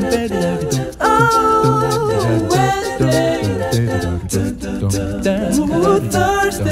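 Background music: a song sung by voices over a steady low beat.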